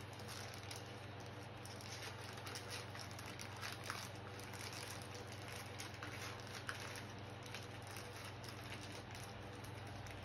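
Faint rustling and small crinkly clicks of plastic packaging being picked open by hand, with a couple of slightly sharper clicks.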